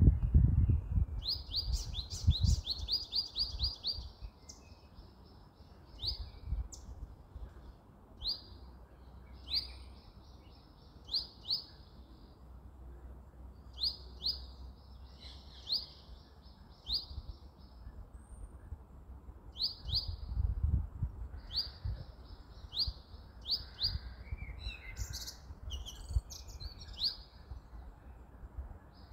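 A small songbird calling: short, sharp, upward-sweeping chirps repeated at irregular intervals, sometimes in quick runs of several a second. Underneath is a low rumble that swells near the start and again about two-thirds of the way through.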